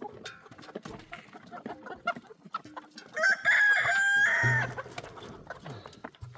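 A rooster crows once, loudly, about three seconds in, the call held for just over a second, among scattered hen clucks and small clicks.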